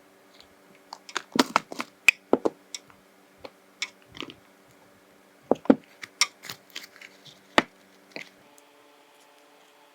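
Irregular sharp clicks and taps of small hard nail-art tools and product bottles being handled and set down, clustered in two runs, the second ending about eight seconds in.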